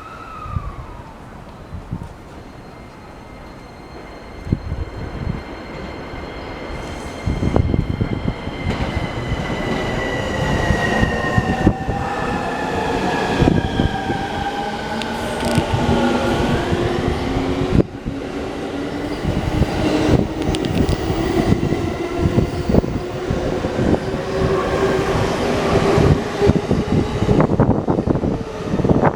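E231 series electric commuter train pulling away and accelerating. Its traction inverters whine in several gliding tones that fall and then rise as the motors pick up speed. Underneath, the wheels rumble and click over the rail joints, louder from about a quarter of the way in as the train gathers speed.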